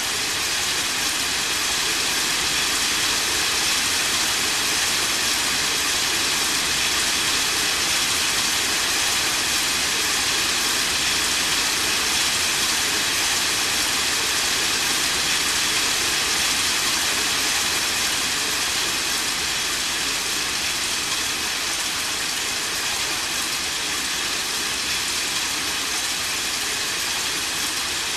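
Steady rain falling, an even hiss with no thunderclap.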